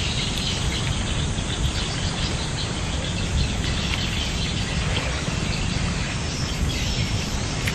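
Steady outdoor background noise with insects chirring throughout.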